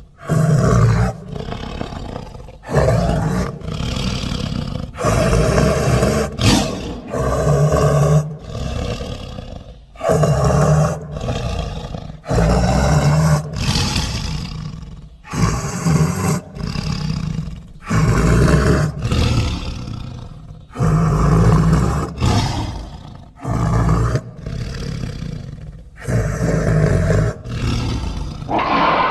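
Edited creature roar effects for an extinct Ngandong tiger, built from tiger recordings and stock monster sounds: a rapid string of big-cat roars and snarls, each a second or two long, starting and stopping abruptly one after another.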